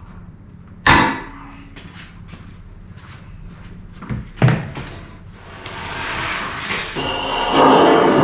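Shop work on metal electrical service parts at a workbench: a sharp bang about a second in, another knock a few seconds later, then a longer scraping, rattling noise that grows louder toward the end.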